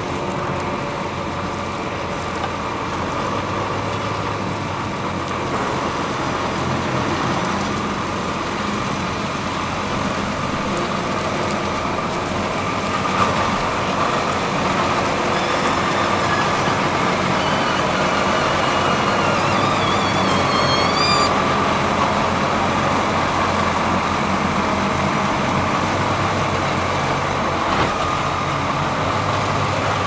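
John Deere 7310R tractor's six-cylinder diesel engine running steadily as it pulls a seven-furrow reversible plough through wheat stubble.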